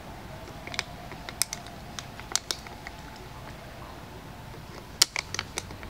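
Clear plastic water bottle crackling and clicking in a monkey's hands as it grabs and turns it: scattered sharp clicks, then a quick cluster of them near the end.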